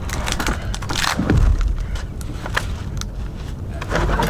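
Cut tree limbs and dry brush crackling and snapping as they are handled, in irregular cracks with louder bursts about a second in and near the end.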